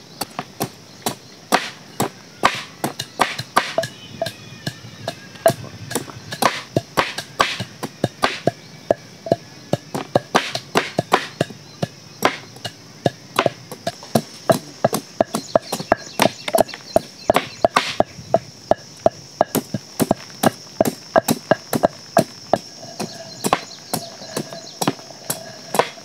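A cleaver chopping raw jackfruit over and over, a sharp knock about twice a second at an uneven pace, as the blade hacks the green rind away.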